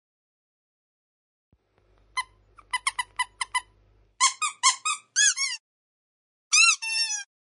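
Rubber squeaky dog toy being squeezed over and over. After about two seconds of quiet comes a quick run of short, high squeaks, then longer squeaks that bend up and down in pitch, in bunches with short gaps between them.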